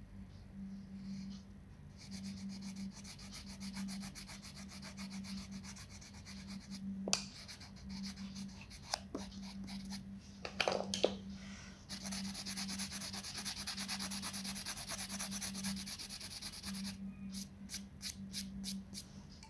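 Wax crayon scribbling back and forth on a colouring-book page: a fast, even, scratchy rubbing that starts about two seconds in and breaks into a few separate strokes near the end. A few light knocks come in the middle.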